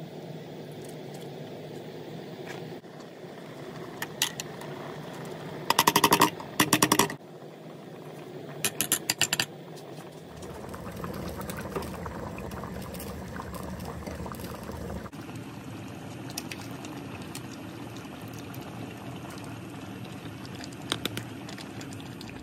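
Chicken curry broth boiling in an aluminium pot on the stove, a steady bubbling hiss. Over it come a few bursts of rapid sharp clicking clatter, the loudest about six to seven seconds in and another about nine seconds in.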